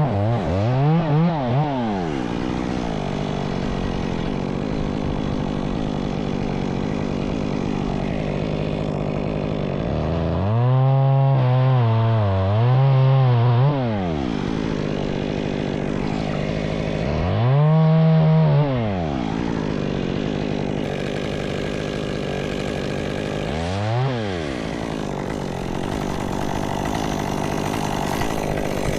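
Chainsaw revving up and dropping back several times: a short burst at the start, two longer revs about ten to fourteen seconds in, another around eighteen seconds and a brief blip near the end, over a steady engine drone.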